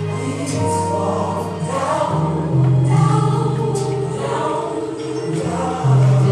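Gospel music: a choir singing over long, held low bass notes.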